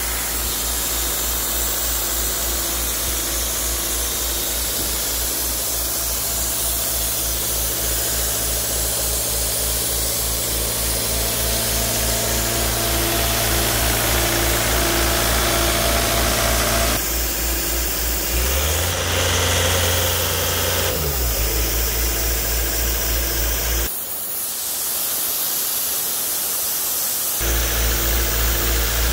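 Diesel engine of a 2015 Doosan 185 CFM portable air compressor running steadily.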